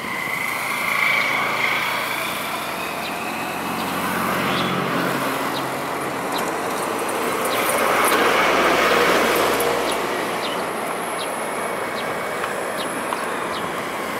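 Outdoor engine noise from a distance, steady at first, then swelling to a peak about eight to ten seconds in before easing off, with a few faint short ticks on top.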